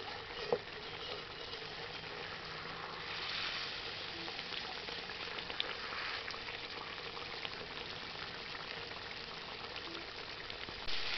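Lote fish (Bombay duck) curry simmering in a kadai: a steady bubbling sizzle with small crackles, as the oil separates from the gravy, the sign that the curry is nearly done.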